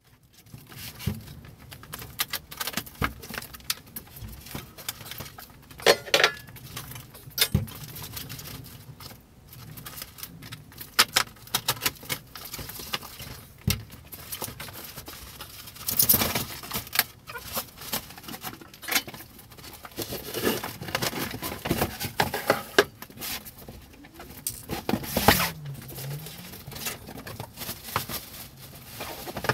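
Unpacking a dust collector from a large cardboard box: cardboard and plastic wrapping rustle, with irregular knocks and clatter as parts are lifted out and set down on the workbench.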